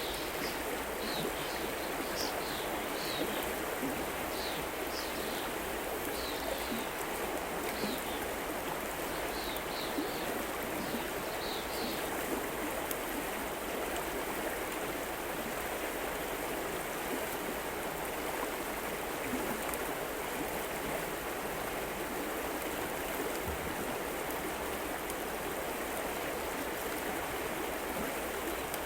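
River water running steadily over rocks, an even rushing. Short high chirps repeat over it during the first twelve seconds or so.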